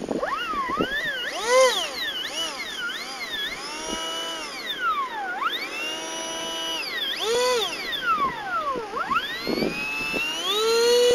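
Electric motor of a hand-held foam RC jet model whining as the throttle is run up and down again and again, its pitch swooping up and falling back. Near the end it climbs to a steady high pitch at full power, ready for the hand launch.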